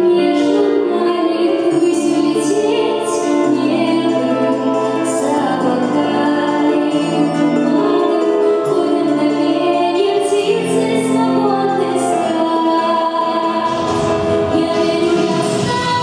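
A girl singing a slow pop song into a microphone over a recorded instrumental backing track, holding long notes above a steady stepping bass line.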